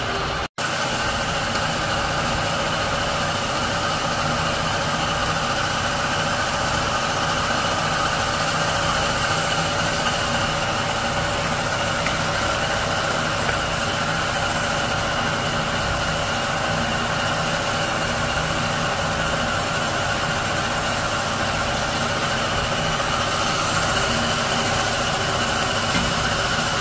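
Steady, unbroken mechanical hum of a running machine, with a sudden brief dropout about half a second in.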